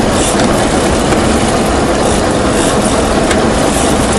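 Fishing boat's engine running steadily, mixed with a loud even rush of wind and water noise.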